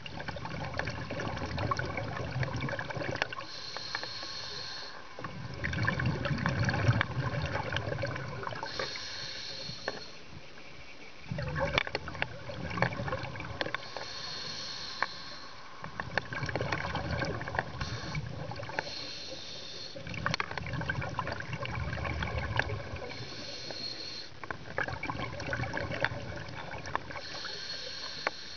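Scuba diver breathing through a regulator underwater: a short hiss on each inhalation, then a longer low bubbling rumble as the exhaled air escapes. About six breaths, one roughly every five seconds.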